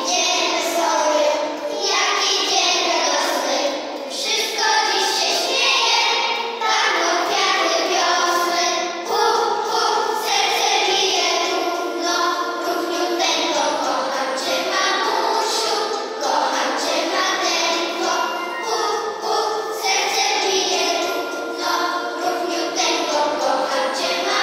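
A group of young children singing a song together, with an instrumental accompaniment that has bright bell-like tinkling.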